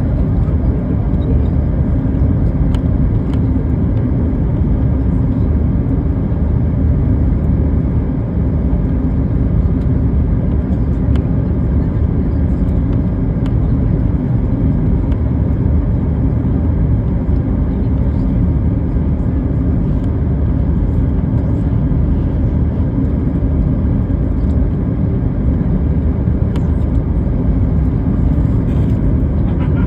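Steady low rumble of a Boeing 737 MAX 8's jet engines and rushing air, heard from inside the passenger cabin during landing.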